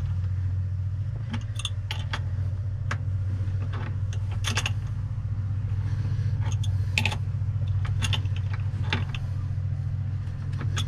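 Hand wrench clinking against a battery terminal nut and clamp as the negative cable is tightened down, a scatter of irregular sharp metallic clicks. Under it runs a steady low hum.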